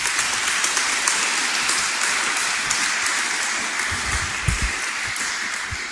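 An audience applauding: dense, even clapping from many hands that eases slightly toward the end, with a few low thumps in the second half.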